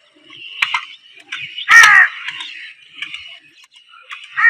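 Crows cawing: three short harsh caws, the loudest about two seconds in, over a steady high background of chirping.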